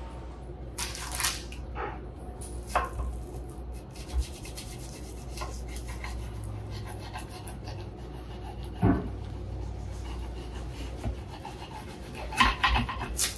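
Knife sawing and scraping through the crust of a baked onion tart in a cast-iron pan, with a few sharp knocks of the blade against the pan scattered through.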